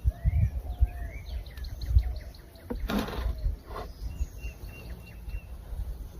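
Small birds chirping repeatedly in short rising and falling notes, over low rumbling and thumps, with a brief scrape about three seconds in.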